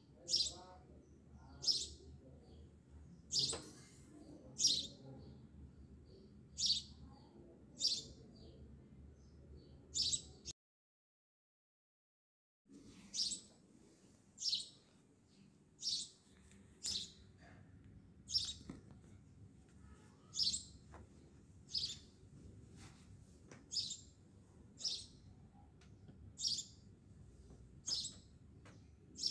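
A bird chirping over a faint low hum, one short high chirp about every second. The chirps break off for about two seconds of dead silence roughly ten seconds in, then carry on at the same pace.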